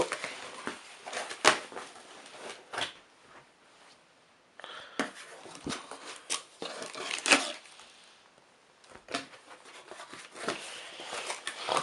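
A cardboard shipping box and its packing being handled and pulled open by hand: irregular rustling, scraping and sharp knocks, with two short lulls.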